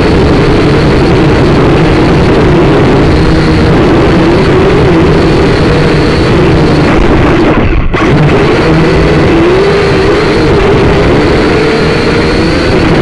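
Loud buzzing whine of a SYMA quadcopter's small electric motors and propellers, heard through its onboard camera's microphone, its pitch wavering up and down; it drops out for an instant about eight seconds in.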